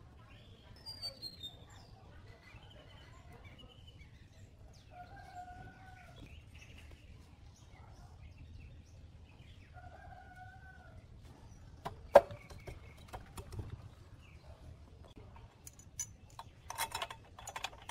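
A chicken calls twice in the background, and small birds chirp. Over this come metal clinks from engine parts being handled: one sharp, loud clink about two-thirds of the way in, then a quick cluster of small clicks near the end.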